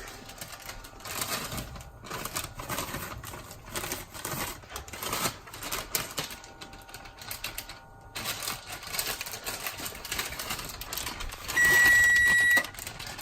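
Irregular clicking and rattling of kitchen handling, then one steady electronic oven beep about a second long near the end, signalling that the oven has finished preheating.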